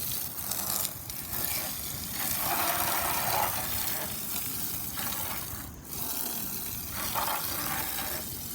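Water spraying onto a lawnmower as it is washed, a steady hiss that swells louder for about a second midway.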